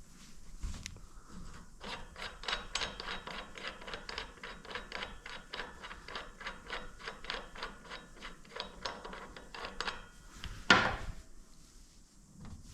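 Ratchet wrench clicking steadily, about four clicks a second, as a fastener is worked loose to take the motorcycle front wheel back out, then a single metal clank near the end.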